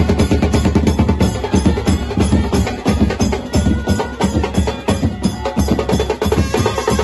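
A brass band's drum section playing a fast, loud, driving beat: large bass drums and side drums struck with sticks, in rapid, dense strokes.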